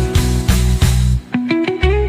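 Background music: guitar-led track with a steady beat and bass, the bass dropping out briefly about a second and a quarter in.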